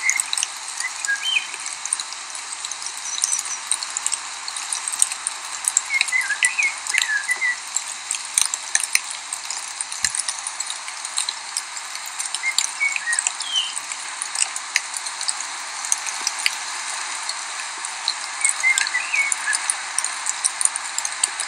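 Steady hiss and crackle of a small stream running close by. Over it, short bursts of high, quick chirps from a small bird come about every six seconds.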